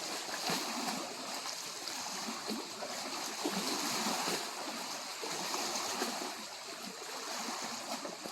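Small lake waves lapping on the shore of Lake Superior, a steady wash of water with gentle swells in loudness.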